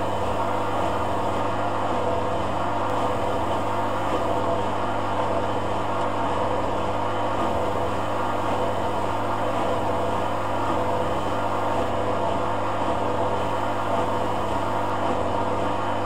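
Hoover A8506 washer-dryer running a cotton rinse cycle: a constant low hum under an even rush of water, steady with no change.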